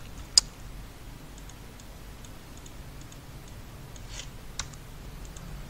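Clicks from working a computer's mouse and keyboard: one sharp click about half a second in, then a few faint ticks and clicks over low room hiss.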